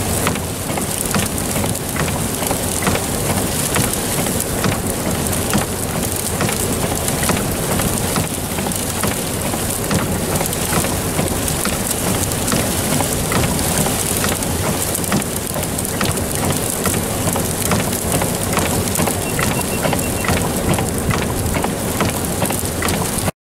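Sleet pellets falling and striking surfaces: a dense, steady hiss full of tiny ticks, with a low rumble underneath.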